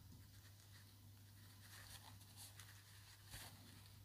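Near silence: faint rustling and scratching of cotton fabric being folded and pinned by hand, over a low steady hum.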